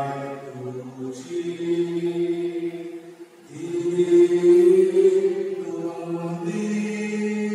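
Slow sung liturgical chant: a voice holding long notes, moving to a new pitch every second or two.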